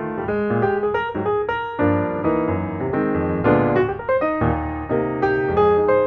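Background piano music: a flowing run of single notes, filling out into fuller chords about two seconds in.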